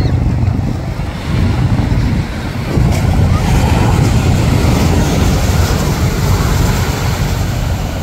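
Wind rumbling on the microphone over surf washing on the beach, the rush of the surf swelling about three seconds in.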